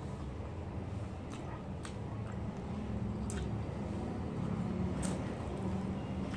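A person eating rice and fish by hand and chewing: a few sharp mouth smacks and clicks, about four in all, over a steady low background rumble.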